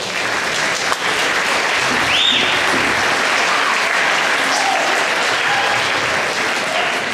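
Audience applauding steadily, with a brief high call rising and falling about two seconds in.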